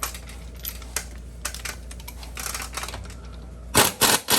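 Scattered light clicks, then near the end short bursts of rapid hammering from an impact wrench snugging the wheel's lug nuts.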